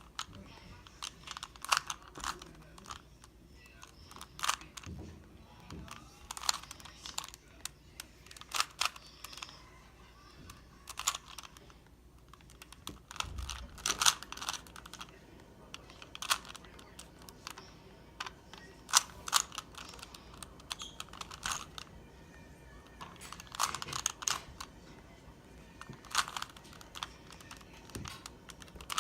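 3x3 Rubik's cube being turned by hand: quick plastic clicks and clacks as its layers rotate, coming in irregular clusters with short pauses between moves.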